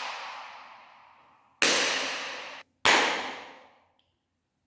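Two sharp hand claps about a second apart, each followed by a reverberant tail dying away over about a second, the first cut off abruptly. The claps are an echo test of a large room, comparing it with bare walls and with sound-absorbing fabric blankets hung.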